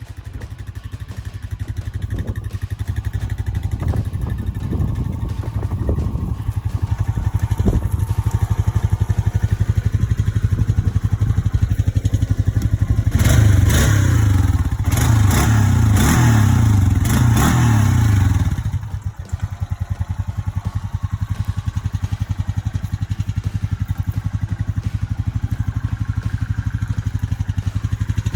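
Honda Rancher 420 ATV's single-cylinder four-stroke engine running, revving louder for about five seconds around the middle, then dropping back to a steady run.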